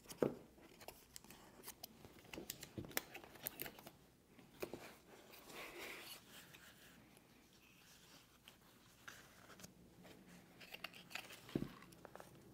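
Faint handling sounds: scattered light clicks and taps, with a soft rustle about halfway through, as an Apple Vision Pro headset and its fabric cover are handled. A single firmer knock comes near the end.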